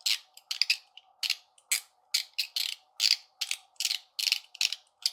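Zirconium UFO haptic coin (Alpha EDC Metal Toy) being worked in the hand: a steady run of sharp metallic clicks, many of them doubled, about two to three a second.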